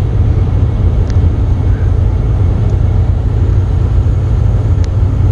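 Steady low rumble inside a semi truck's cab at highway speed: the diesel engine and road noise, with a couple of faint clicks.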